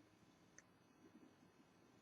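Near silence: room tone, with one faint click a little over half a second in.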